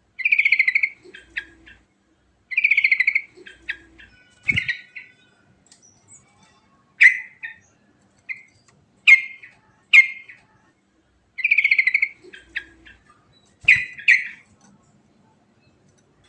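Yellow-vented bulbul (trucukan) singing: short, fast rolled phrases and single chirps, repeated with pauses between them. Two brief low knocks sound under calls, about four and a half seconds in and near the end.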